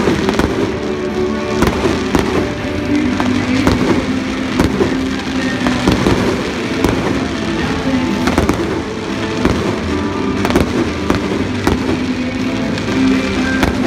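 Aerial fireworks bursting in a rapid, irregular series of sharp bangs, with music playing underneath.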